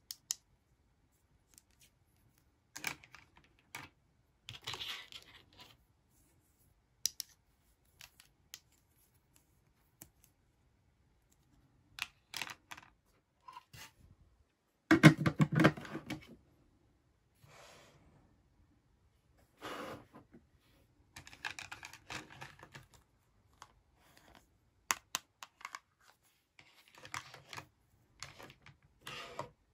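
Hard plastic toy tea-set pieces being handled: spoons, cups and the teapot lid clicking, tapping and scraping against each other in scattered bursts, with the loudest clatter about halfway through.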